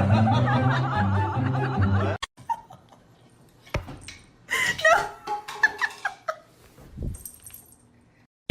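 Background music with a steady bass line cuts off abruptly about two seconds in. The rest is quieter, with a short stretch of laughter in the middle and a few scattered clicks.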